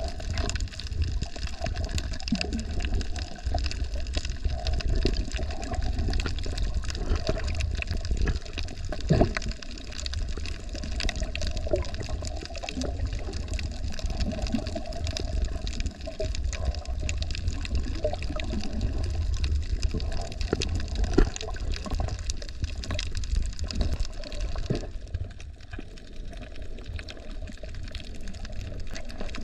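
Water heard through an underwater camera while snorkeling: a muffled, steady low rumble of water moving around the submerged housing, with scattered short clicks and crackles. It eases a little near the end.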